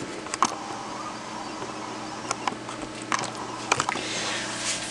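Light, scattered clicks and taps of hard plastic toy parts being handled, a handful at irregular intervals, over a faint steady hum.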